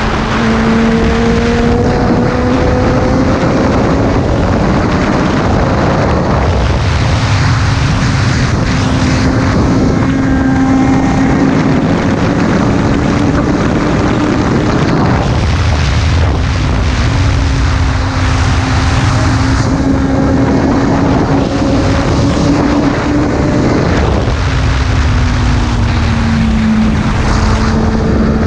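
Sport motorcycle engine running hard at speed, its note drifting up and down a few times as the throttle changes, under a heavy rush of wind.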